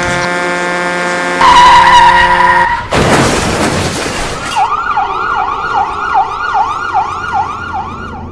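A truck horn blares in a steady chord, louder from about a second and a half in, then a crash hits about three seconds in. An emergency siren follows, wailing up and down in quick cycles.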